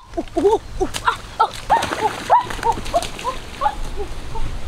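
A quick run of short animal calls, several a second, each rising and falling in pitch.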